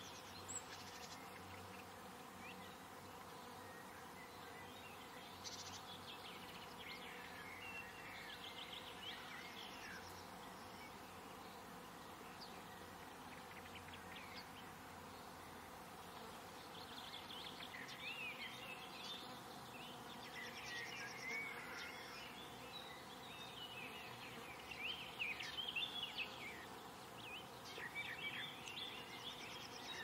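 Faint garden ambience: small songbirds chirping and twittering on and off, busier in the second half, over a steady faint buzz of insects.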